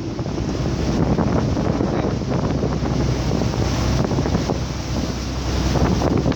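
Wind buffeting the microphone on a fishing boat under way, over the steady low hum of the boat's engine and water rushing past the hull.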